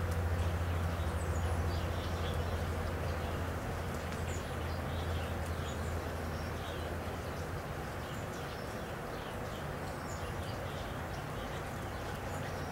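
Birds chirping, many short high calls scattered throughout, over a steady hiss of rain. A low hum underneath is strongest in the first few seconds and then eases off.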